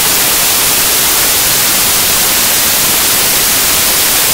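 Loud, steady white-noise static, an even hiss across all pitches with nothing else heard.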